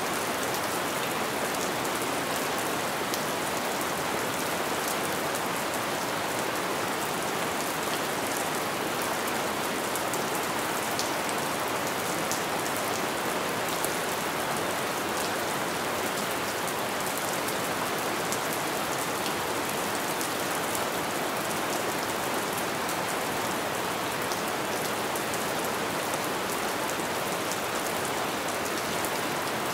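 Light rain falling steadily: an even hiss of rain with many small drop ticks scattered through it.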